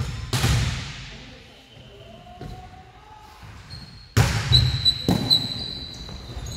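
Volleyball hits echoing around a sports hall: a sharp smack just after the start, a quieter stretch, then a louder run of hits from about four seconds in. A thin, high, steady squeal runs from about four and a half seconds on.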